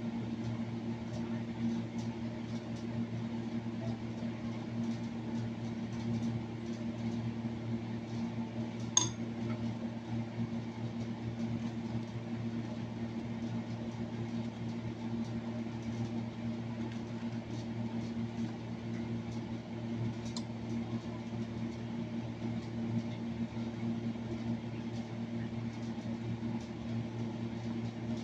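Steady low electrical hum, with faint taps and rustles as samoli bread is handled on a plate and one sharp clink about nine seconds in.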